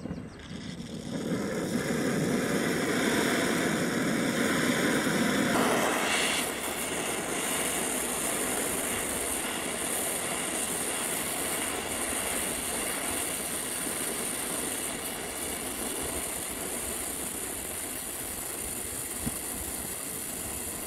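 Oxy-acetylene welding torch burning with a steady hiss as its flame melts a puddle in thin sheet metal. About six seconds in the hiss drops a little and stays even.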